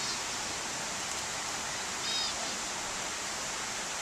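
A steady rush like falling water fills the background, and a small bird gives short high chirps twice, once at the start and once about two seconds in.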